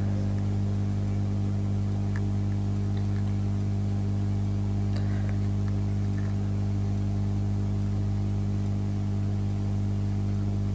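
Steady low electrical hum with a buzzing overtone, as from the mains transformer of a battery charger built from an old UPS, with a few faint clicks of alligator clips being handled.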